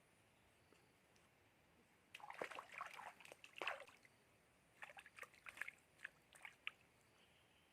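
Water splashing and sloshing in two short spells of crackly bursts, the first about two seconds in and the second about five seconds in.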